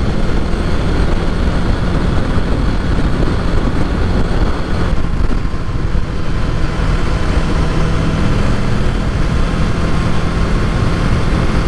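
Riding on a 2023 Kawasaki Ninja 650: heavy wind rush over the microphone with the parallel-twin engine running at steady revs underneath. A steady engine tone comes through more clearly about halfway through.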